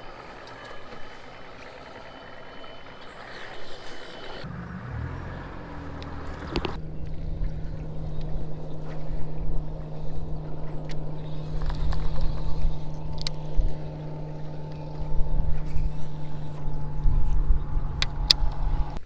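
Bass boat motor running, changing abruptly about four and a half seconds in and again near seven seconds, then holding a steady low hum, with a few sharp clicks later on.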